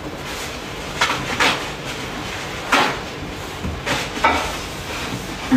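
Dishes and kitchen utensils clinking and knocking while food is dished up: about five short, separate knocks scattered over a few seconds.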